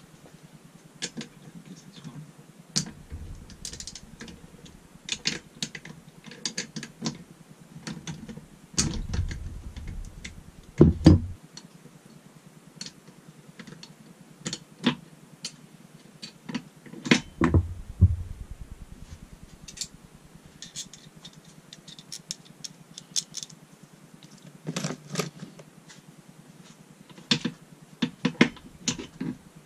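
Steel gear shafts, selector parts and case of an opened Honda five-speed manual gearbox clinking and knocking as they are worked by hand: irregular sharp clicks and small clanks, with a few louder knocks about ten seconds in and again a little past the middle.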